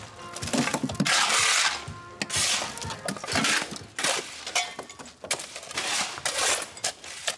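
Shovels scraping into heaps of broken brick and soil, with the rubble clattering and clinking, about one scoop a second.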